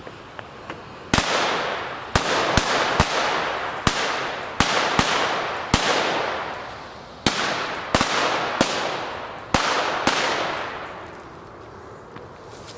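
Weco Headbanger firecracker string going off: about a dozen loud bangs at an uneven pace, roughly one a second, each ringing out in a long echoing tail. The first bang comes about a second in. The bangs are not very fast but quite loud.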